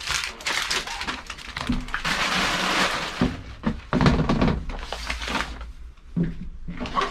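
Tidying up inside a stripped-out van: irregular rustling and crinkling of handled material, with scattered knocks and thunks.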